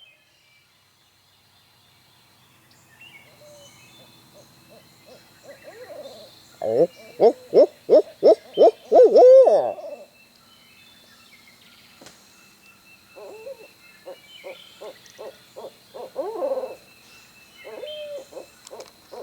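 Owls hooting. Faint hoots build into a loud, rapid run of about eight hoots between about 7 and 10 seconds in, and a second, softer series follows a few seconds later.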